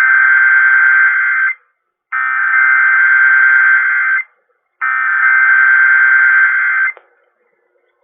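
Emergency Alert System SAME header: three identical bursts of shrill, warbling digital data tone, each about two seconds long, with short gaps between them. This coded burst sequence opens an EAS alert, here a weekly test.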